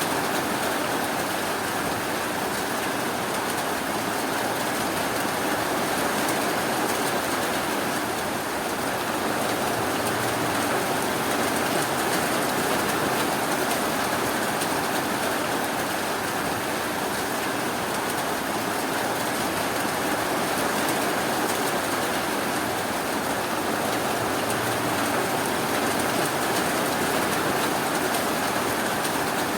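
Steady rainfall, an unbroken even rush of noise.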